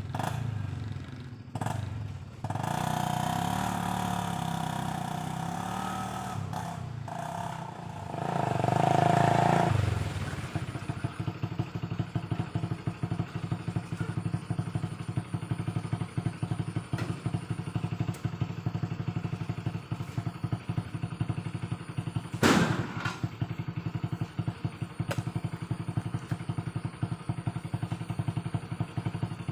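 Single-cylinder Honda Revo 110cc motorcycle engine driving a homemade mini truck, its revs rising and falling for about ten seconds and loudest near the end of that stretch, then settling into a steady, even putter. A single sharp thump about two-thirds of the way through.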